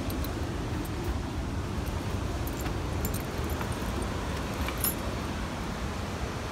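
Keys jingling in hand, a few light metal clicks about halfway through and again near the end, over a steady low rumble.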